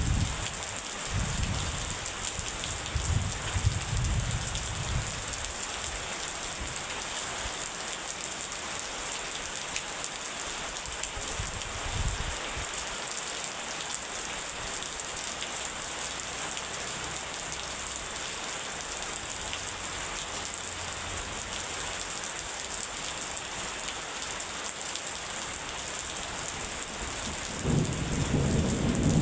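Steady rain hissing down, with rolls of thunder: low rumbles in the first few seconds, a short one about twelve seconds in, and a louder roll building near the end.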